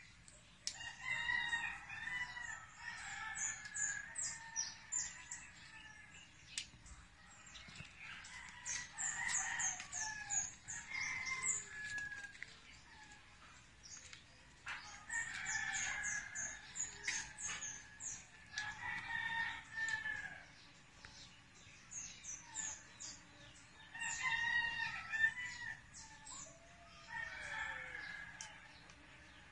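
Roosters crowing again and again, a call every few seconds, with small birds chirping high and briefly in between.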